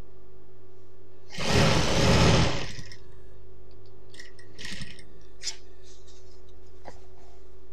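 Industrial sewing machine running in a short burst of stitching lasting about a second and a half, then a brief second run a few seconds later, with small clicks as the cloth is handled. A steady low hum runs underneath.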